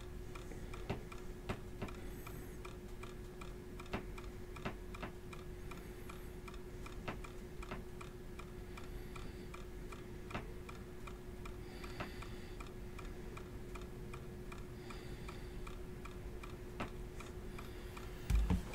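Quiet room tone: a steady low hum under a faint, quick, even ticking, with scattered light clicks.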